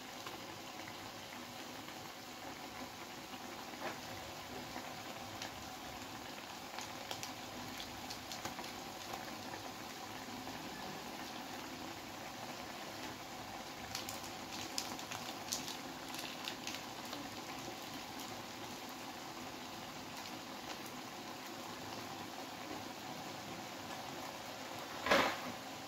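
Chili, tomato and spice sauce thinned with water, bubbling at a steady boil in a wok, with a few faint ticks in the middle and one short sharp knock near the end.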